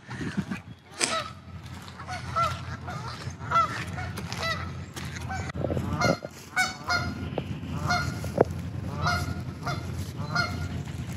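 A flock of waterfowl on a lake calling with short, repeated honking calls, overlapping and coming several a second at times, over a steady low rumble. A single sharp click stands out about eight seconds in.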